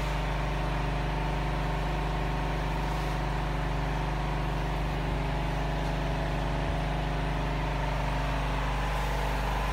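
Air compressor of a sandblasting rig running at a steady drone, with a constant hiss over it.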